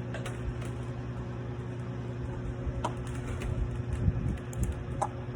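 Steady low mechanical hum with a few faint clicks, and some soft low bumps around the middle.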